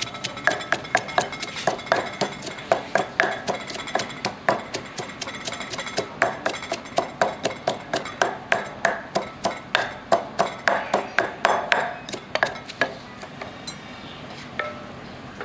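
Pestle pounding ingredients in a mortar, steady rhythmic knocks about three or four a second, slowing and stopping near the end.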